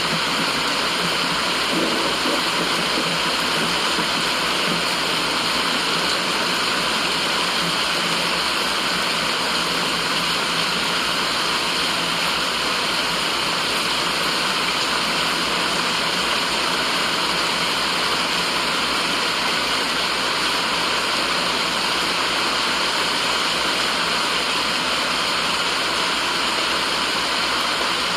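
Steady white noise: an even, unbroken hiss that does not change, strongest in the upper-middle range.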